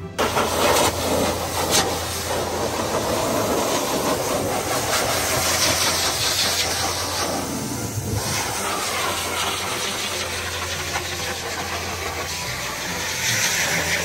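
High-velocity pet dryer blowing a loud, steady rush of air with a low hum underneath, drying a dog's wet coat.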